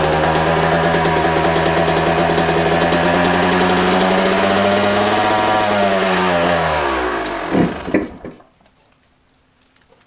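Yamaha YZ250 two-stroke dirt bike engine running steadily on a freshly fitted spark plug that replaced a fouled one. About six seconds in its pitch falls and the engine dies out, with a couple of sharp pops as it stops.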